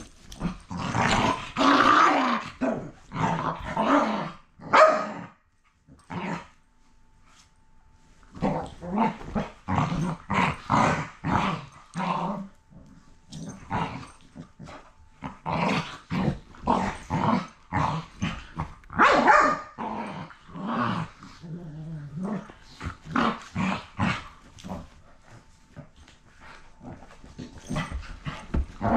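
Two dogs play-fighting, growling and barking in rapid short bursts, with a pause of a few seconds about six seconds in.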